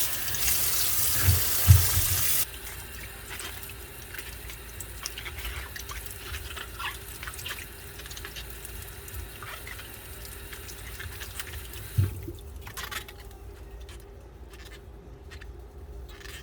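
Water running hard from a tap, shut off abruptly about two and a half seconds in. Faint clicks and knocks follow, with one thump near the twelve-second mark.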